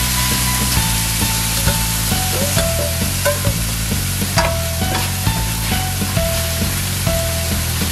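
Soaked long-grain rice with garlic and red onion sizzling as it is sautéed in a stainless steel pan, with a spatula scraping and knocking as it stirs. Soft background music with a simple melody plays under it.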